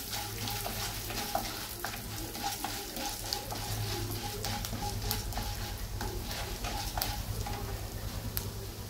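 Urad dal and mustard seeds frying in hot sesame oil in a kadai, sizzling steadily with scattered small pops, while a wooden spatula stirs and scrapes them around the pan.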